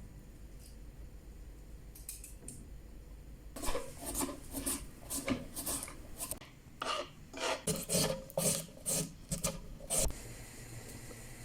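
A run of about twenty quick rasping scrapes, roughly three a second, with a short pause midway. They start a few seconds in and stop about a second before the end.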